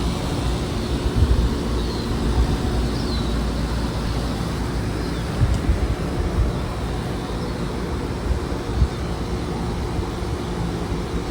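A steady low outdoor rumble with uneven low thumps, with a few faint, short, high bird chirps over it.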